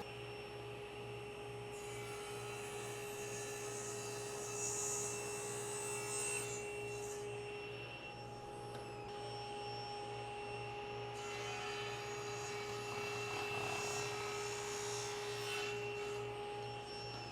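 Electric woodworking saw running with a steady motor hum and whine, cutting tapers in hardwood table legs on a taper jig. The cutting noise comes in two stretches, the first from about two seconds in and the second from about eleven seconds in.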